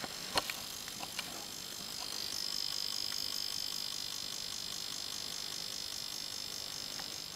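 A sharp click, then a couple of softer ones, followed from about two seconds in by a high-pitched insect trill that pulses rapidly and evenly until the end, over a steady hiss.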